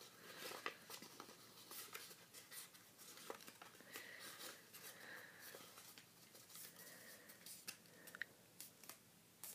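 Faint rustling and crinkling of a sheet of paper being pleated and creased by hand, with many small crisp ticks scattered throughout.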